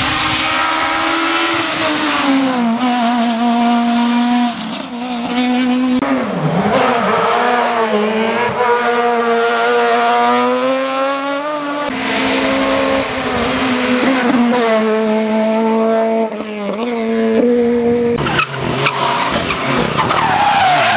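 Rally cars driven hard on a stage: engines at high revs rising and falling with throttle and gear changes, with tyres squealing and skidding. The sound changes abruptly every few seconds as one car gives way to the next.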